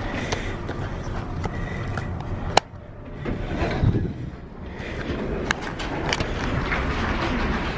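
Handling noise from a hand-held camera being carried while walking: a steady rustle and rumble of clothing and grip with scattered small clicks, and one sharp knock about two and a half seconds in, after which it briefly goes quieter.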